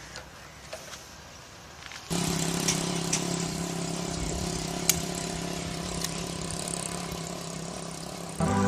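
Small motorcycle engine starting suddenly about two seconds in and then running steadily at idle, with a single sharp click near the middle.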